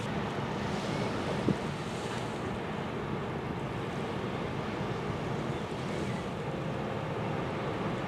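Steady wind buffeting the microphone over the wash of water at the shoreline, with a brief knock about one and a half seconds in.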